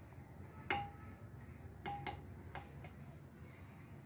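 Metal spoon clinking against the rim of an aluminium cooking pot while stirring cooked rice: four short, ringing clinks, one about a second in and three close together past the middle.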